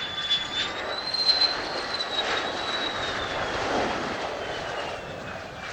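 Mitsubishi F-2 fighter's single turbofan engine running, a high whine over a broad rushing roar, the whine sliding lower over the last couple of seconds.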